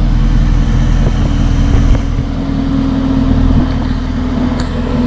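2018 Camaro SS's 6.2-litre V8 idling with a steady low hum.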